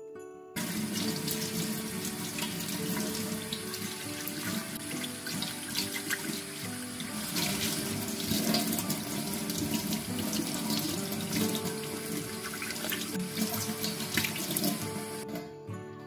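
Kitchen tap running into a stainless steel sink, with hands being rubbed and rinsed in the stream. The water comes on suddenly about half a second in and stops shortly before the end.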